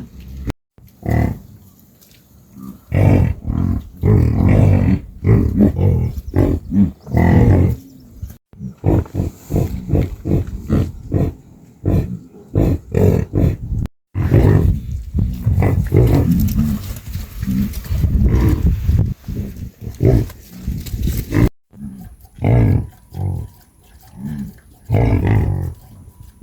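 Cattle lowing repeatedly in short, low calls, breaking off abruptly a few times.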